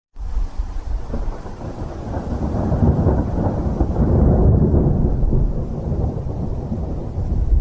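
Thunder rumbling over rain: a storm sound effect that starts abruptly and grows louder, turning duller about four and a half seconds in.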